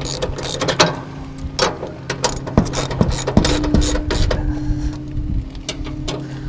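Ratchet wrench clicking in irregular runs as it turns and tightens bolts into threaded holes, securing a bagger bracket to a riding mower's frame. A steady low hum runs underneath.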